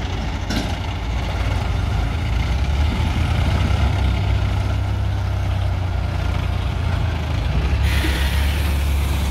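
Diesel engine of a Swaraj 735 FE tractor running under load as it hauls a log-laden trailer through deep mud, a steady low drone that grows a little louder after a few seconds. A burst of hiss comes in near the end.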